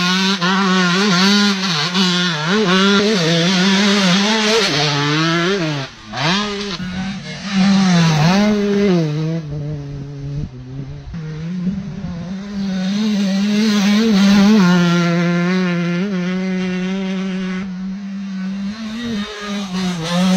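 KTM motocross bike's single-cylinder engine revving hard under throttle, its pitch repeatedly climbing and dropping back as it is ridden. About six seconds in the throttle is briefly shut, then the engine revs up again.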